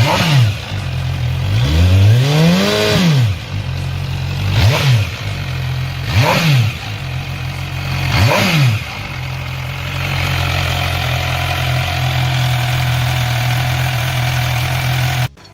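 2021 MV Agusta Brutale 1000 RR's inline-four engine idling and blipped five times in the first nine seconds, each rev rising and falling quickly, the second one longer. After that it settles to a steady idle, which cuts off just before the end.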